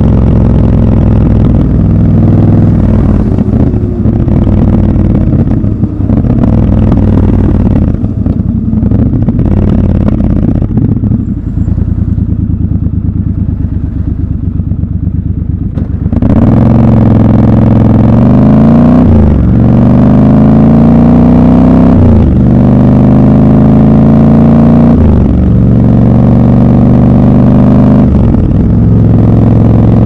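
Triumph Scrambler 1200 XC's 1200 cc parallel-twin engine heard from the rider's seat. For the first half it runs low and eases off, quieter from about eight seconds in. About halfway through the throttle opens and it accelerates hard, its pitch climbing and then dropping at each of several upshifts, about one every three seconds.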